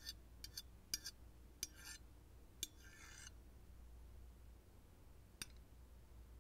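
Forks clinking and scraping on ceramic dinner plates: several light clinks in the first three seconds, a short scrape about three seconds in, and one more clink near the end, over quiet room tone.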